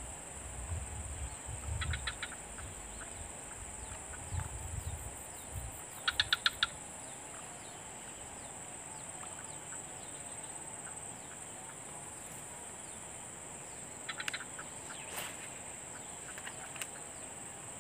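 Steady high-pitched drone of insects, with a short rapid run of clicking notes a few times, the loudest about six seconds in. A low rumble sits under the first few seconds.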